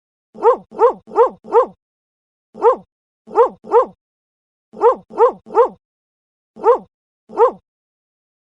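A dog barking: about a dozen short, sharp barks in quick runs of three or four, then single barks near the end, with dead silence between each bark.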